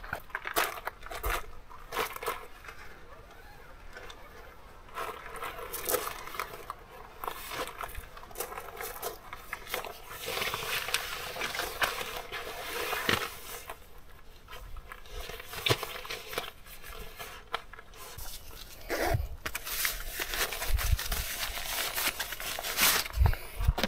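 Handling noises of camping gear: rustling, scraping and scattered knocks and clicks as an inflated air sleeping pad is moved and pushed into a tent, then a nylon stuff sack is handled.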